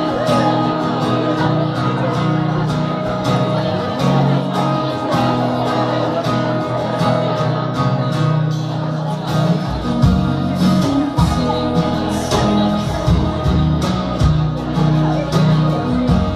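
Live band music: strummed acoustic guitars, with a deeper bass part coming in about ten seconds in.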